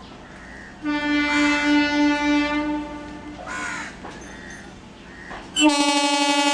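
Horn of an Indian electric multiple-unit local train sounding two steady, single-pitched blasts: one lasting about two seconds starting near the beginning, and a louder one starting near the end. This is the departure signal of a train standing at a platform. A crow caws between the two blasts.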